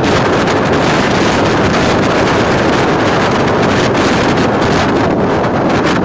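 Wind buffeting the microphone of a phone carried on a moving motorcycle: loud, steady wind noise with no letup.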